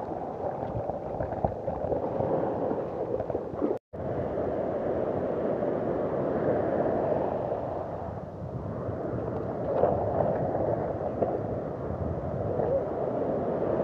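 Ocean surf breaking and washing over the shallows as a steady rushing noise, which cuts out for an instant about four seconds in.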